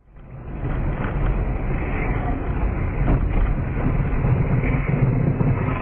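Steady engine and road noise of a car driving, heard from inside the cabin through a dashcam microphone, with a few faint knocks.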